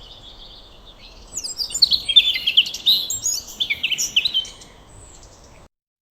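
Small birds chirping and twittering, faint at first, then a busy burst of rapid, high chirps from about a second in, fading near the end before the sound cuts off.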